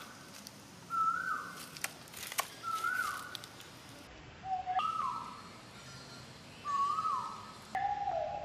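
Baby macaque crying with repeated short, pitched coo calls, about one every two seconds, each rising and then falling. A few faint clicks come around two seconds in.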